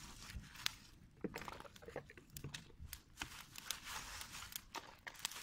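Irregular sharp crackles and snaps from a small open fire of dry palm fronds, mixed with the crinkle of a plastic bag being handled.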